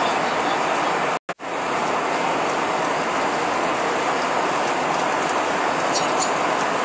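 Steady cabin noise of an Airbus A320 in flight: an even rush of airflow and the IAE V2527-A5 turbofans. The sound cuts out briefly twice about a second in.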